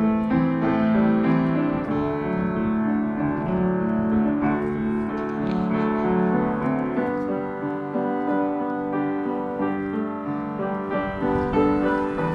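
Background piano music with long held notes.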